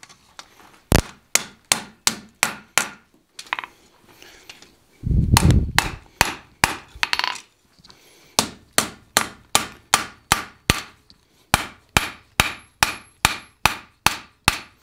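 Hand hammer striking red-hot steel on an anvil, reforging the bevel on an arm of a forged split cross. A run of blows, a pause of a couple of seconds broken by a low thump (the loudest sound, about five seconds in), then a steady run of about two and a half blows a second through the second half.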